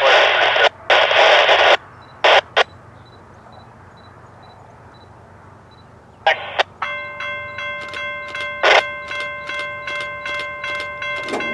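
Bursts of radio static from a railroad scanner being keyed up: loud hissing squelch bursts in the first two seconds and a few shorter ones after. From about seven seconds in comes a steady ringing of several tones, clicking about two and a half times a second.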